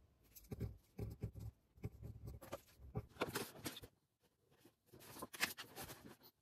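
Pen and paper sounds at a study desk: a run of short, irregular scratching and rustling strokes of a pen writing on a textbook page, with a brief pause about two-thirds of the way through.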